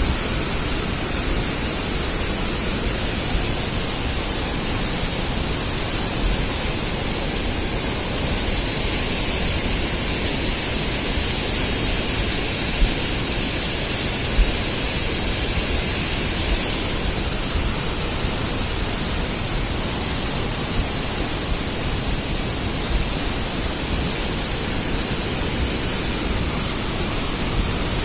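Flash-flood torrent after a cloudburst: muddy water rushing and churning in a swollen mountain stream, a steady dense roar. A few brief low thumps stand out over it.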